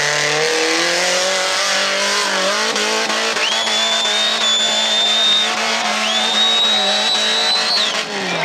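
Trophy-class off-road buggy's engine revving up and then held at steady high revs as it climbs a steep dirt bank, the revs dropping near the end. Twice in the middle a high, steady whistle-like tone sounds for about two seconds each.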